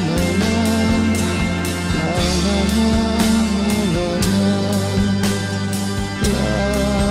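Rock song with a steady drum beat, bass and electric guitar, and a singing voice.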